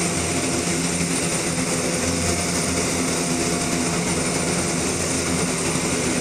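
Military cargo aircraft's engines running steadily, a loud even drone with a thin constant high whine.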